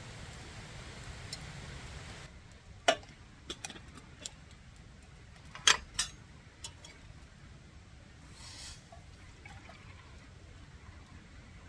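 A steady hiss that cuts off about two seconds in, followed by a handful of sharp clinks and taps, the loudest two about three and six seconds in, and a brief soft rustle near the end.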